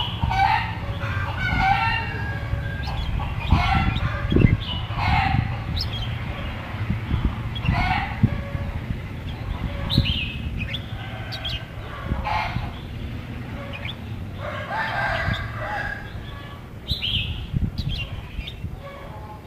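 Red-whiskered bulbul calling in short chattering phrases at irregular intervals, over a steady low rumble.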